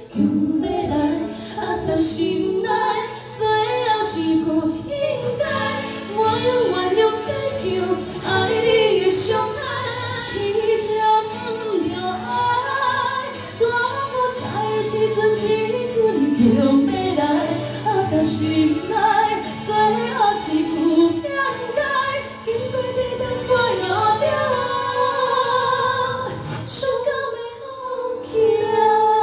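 Two women singing a pop ballad duet into handheld microphones, taking turns and joining together, over a musical accompaniment with steady held low notes.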